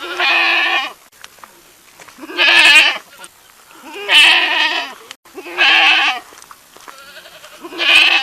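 A goat bleating five times, each call under a second long with a wavering pitch, about one to two seconds apart.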